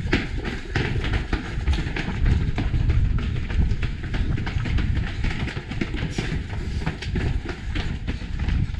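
Running footsteps of several runners striking stone and cobbled paving in a quick, steady rhythm. Under them is a constant deep rumble of wind and movement on the microphone of a camera carried by one of the runners.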